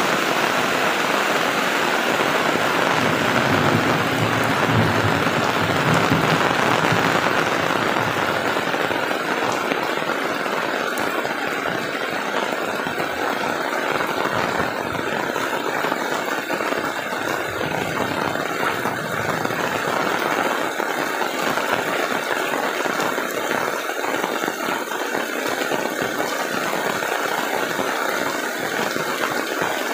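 Heavy tropical rain falling steadily on a wet road and roofs, an even hiss throughout. A low rumble rises for a few seconds about three seconds in.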